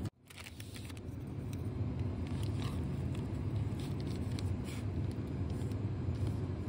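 Steady low background rumble, with a few faint light clicks and rustles from wooden chopsticks picking a slice of kimbap off its wrapper.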